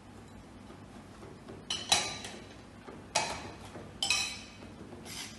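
Kitchen utensils clinking against a dish while a cuttlefish salad is mixed: about five sharp, ringing clinks at uneven intervals, two of them close together a little under two seconds in.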